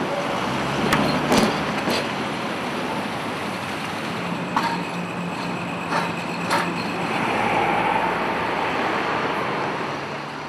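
City street traffic noise: vehicles running past, with a few sharp clicks and knocks scattered through and a steady low hum for a few seconds in the middle.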